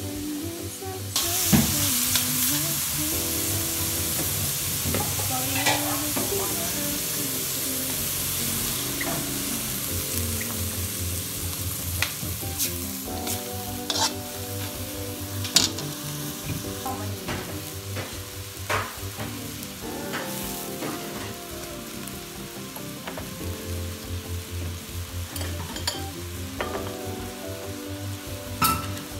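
Minced meat sizzling and frying in oil in a metal wok while being stirred, with a spoon scraping and clinking against the pan many times. The sizzling sets in loudly about a second in and eases after several seconds.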